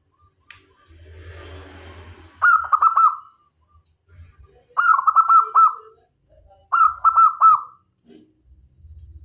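Zebra dove (perkutut) singing its cooing song: three phrases of quick, repeated notes, each about a second long and about two seconds apart. A softer rustling noise comes just before the first phrase.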